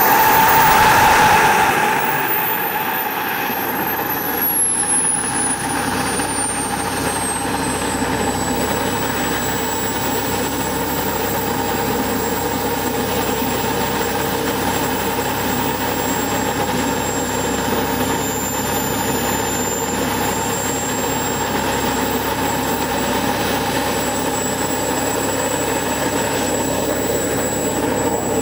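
KingTech K80 model jet turbine of a Fly Eagle Jets Rafale RC jet running on the ground. Its high whine is loudest for the first couple of seconds, then falls in pitch as it is throttled back, and from about eight seconds in it settles to a steady idle.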